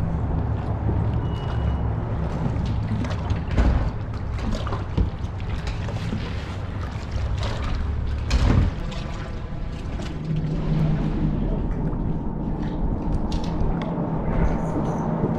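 Choppy water slapping against an aluminium fishing boat's hull, with wind on the microphone. There are a couple of sharp knocks, the loudest about eight and a half seconds in, and a steady low hum joins from about ten seconds in.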